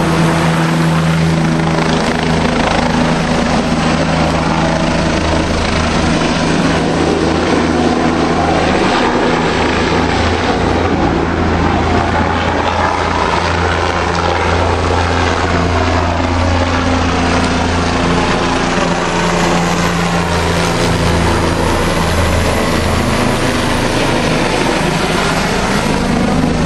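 Small single-rotor helicopter circling low overhead, its rotor and engine a loud, steady thrum. The pitch of its sound sweeps up and down as the helicopter moves around.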